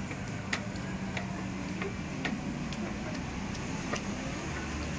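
Footsteps clicking on a tiled pavement, about two a second, over a low steady street hum.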